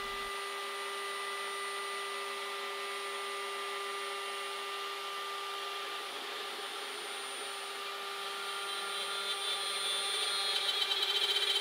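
CNC router spindle running at speed with a steady high whine as it cuts a plywood sheet, over the steady rush of a dust collector. The sound grows louder and brighter over the last couple of seconds.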